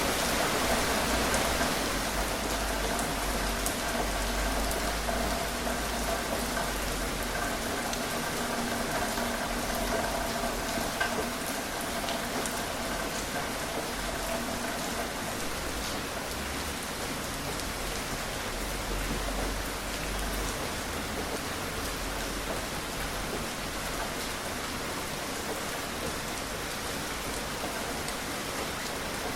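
Steady rain falling: an even hiss with scattered individual drops ticking through it.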